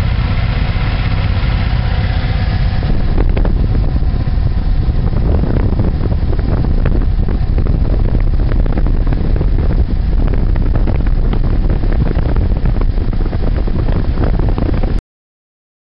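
Suzuki Boulevard motorcycle running along the road, engine droning with wind rushing over the microphone. About three seconds in the wind grows and drowns out the engine's steady tone. Near the end the sound cuts off suddenly.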